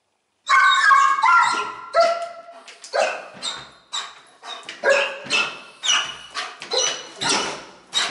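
Shepherd dog barking and yelping excitedly in a rapid string of sharp, high calls that start about half a second in. It is eager to be let out to go to training.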